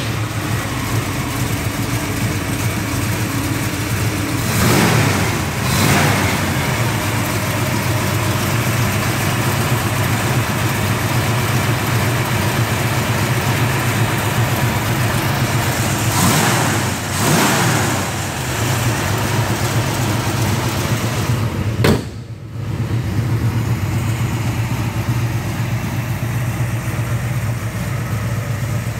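Ford 289 V8 of a 1965 Mustang GT350 tribute idling steadily, blipped twice, about five and sixteen seconds in, the revs rising and falling back each time. A sharp click and a brief drop about 22 seconds in.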